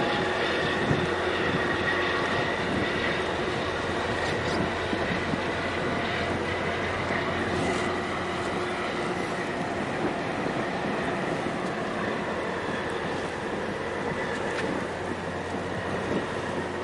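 Steady drone of ship and tug engines running over water wash, with a low hum and a faint high whine throughout.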